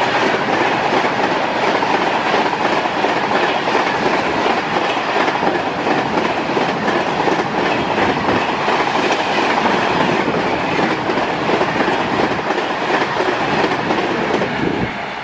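LHB passenger coaches of an express train rushing past at about 130 km/h: a loud, steady roar of wheels and air, with the wheels clattering over rail joints.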